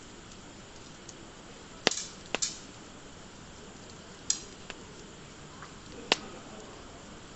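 Wood fire crackling with a handful of sharp, loud pops, two close together about two seconds in, one after about four seconds and one after about six, over a faint steady hiss.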